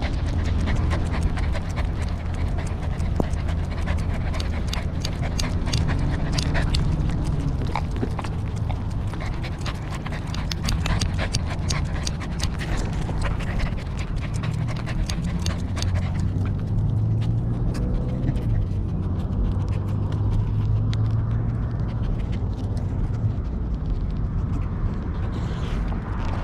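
A corgi panting close to a GoPro on its collar, with a heavy low rumble and frequent sharp clicks from the collar-mounted camera being jostled; the clicks thin out in the second half.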